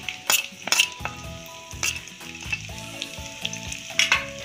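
Chopped garlic sizzling in hot oil in a kadhai, with a steel spoon clicking and scraping against the pan as it is stirred: sharp clicks in the first second and again about four seconds in.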